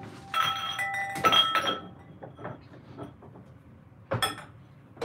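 Glass wine glasses clinking together as they are handled and set down: a few ringing chinks in the first two seconds, then a single knock about four seconds in.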